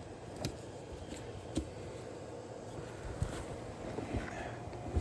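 Electric fuel pump on a 6.7 L Power Stroke diesel running steadily, circulating fuel through the newly replaced fuel lines before the engine is started. A few faint clicks and knocks sound over it.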